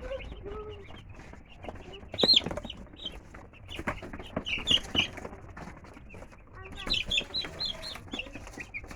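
A brood of three-day-old chicks peeping: many short, high chirps in clusters, mixed with scattered sharp taps, the loudest about two seconds in.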